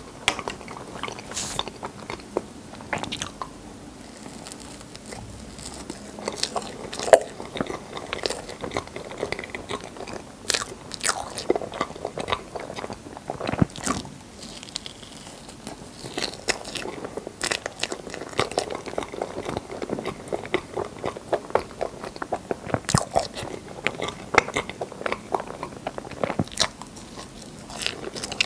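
Close-miked eating sounds: a person biting and chewing rainbow crepe cake, with irregular sharp mouth clicks and smacks. The loudest click comes a little after seven seconds in.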